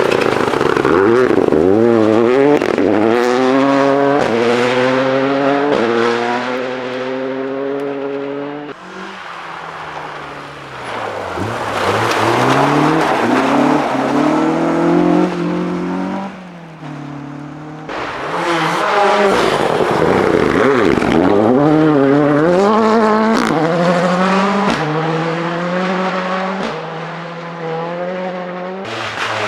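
Rally cars at full throttle, one after another, each engine's pitch climbing and dropping back in quick steps as it changes up through the gears. The engine note dips and a new car comes in about a third of the way through and again a little past halfway.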